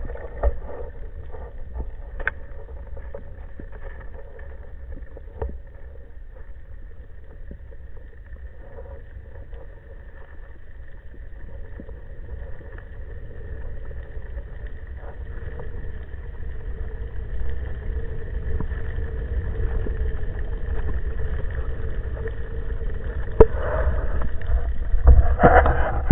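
Underwater ambience heard through a camera's waterproof housing: a steady low rumble with faint scattered clicks. It grows louder from about three-quarters of the way in, with swishing and knocks as the diver moves his hand and fin close to the camera.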